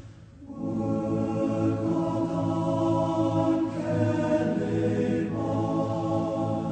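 Slow background music of long held chords, each chord changing after a second or two, after a brief dip at the very start.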